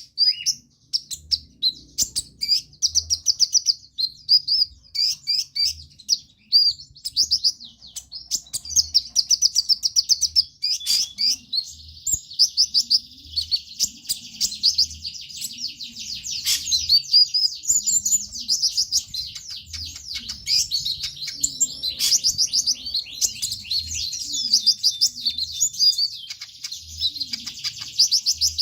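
A konin (kolibri ninja, a sunbird) singing in a near-continuous run of rapid, high chittering trills. This is the energetic 'trotolan' song.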